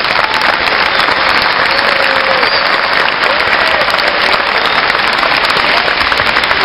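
A crowd of seated students applauding, steady clapping that runs on without a break.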